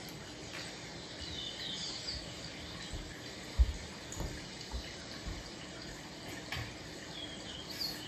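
Freshly cleaned wall-mounted air conditioner running on heating: a steady airflow hiss with a faint hum. A few short high chirps come through, and there is a single thump about three and a half seconds in.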